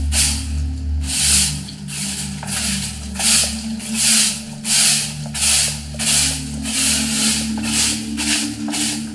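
A broom sweeping a glossy ceramic tile floor: a steady rhythm of brisk scraping strokes, about one and a half a second.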